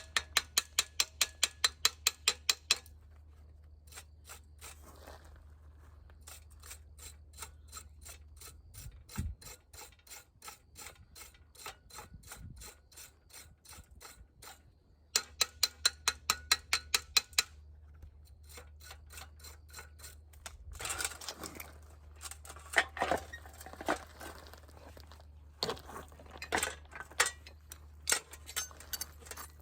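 Rapid, evenly spaced mechanical clicking like a ratchet, about six clicks a second, in two runs of a few seconds each, then irregular clattering near the end, over a steady low hum.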